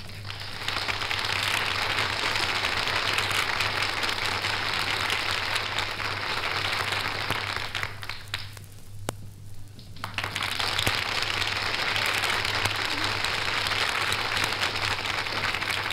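Studio audience applauding on an old acetate disc transfer, with a low steady hum underneath. The clapping dies away about eight seconds in, then swells again a second or two later.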